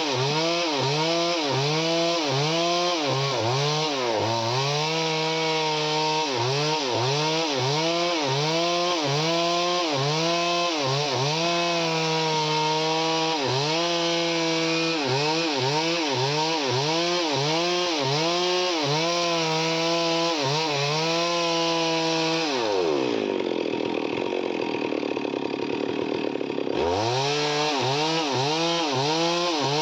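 Chainsaw engine running at high revs while cutting wood, its pitch dipping and recovering over and over as the chain loads up in the cut. Near the end the engine note drops away for a few seconds, then the cutting sound returns suddenly.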